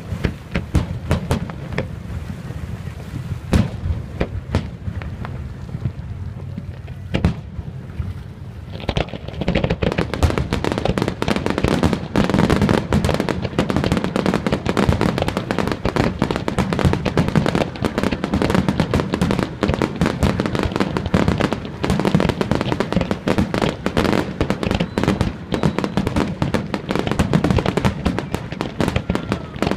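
Aerial fireworks display: separate shell bursts banging over a low rumble for the first several seconds, then from about nine seconds in a dense, continuous barrage of rapid bangs and crackling.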